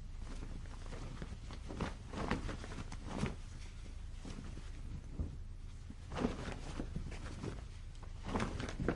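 Cloth on a clothesline flapping gently in the wind: irregular soft swishes and flaps that come in clusters a few seconds apart, over a steady low rumble.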